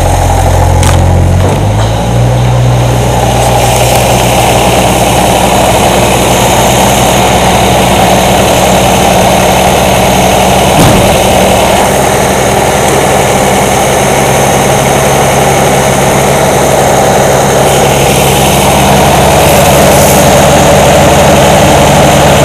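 Old dump truck's engine idling steadily just after a cold start; its idle speed picks up slightly about a second and a half in.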